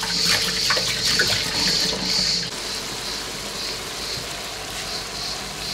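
Tap water running onto rice in a metal sieve as it is rinsed by hand. About halfway through, this gives way to a quieter frying-pan sizzle as chopped spring onion, garlic and zucchini pulp cook in olive oil and are stirred with a wooden spoon.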